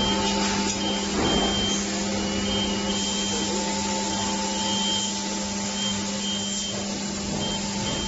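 DGRule CNC machine running: a steady motor hum and noise, with a high whine that comes and goes in short stretches.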